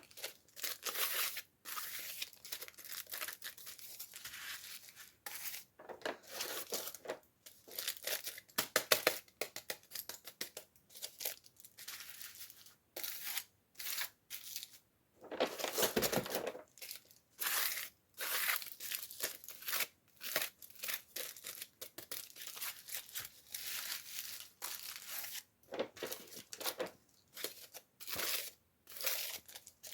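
Toy packaging being torn open and crinkled by hand: a run of short, irregular rips and rustles with brief pauses between them.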